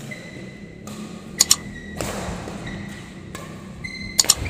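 Mouse-click sound effects from a like-and-subscribe overlay: sharp double clicks, once about a second and a half in and again near the end. Under them is the low background of badminton play in a hall, with a thud about two seconds in.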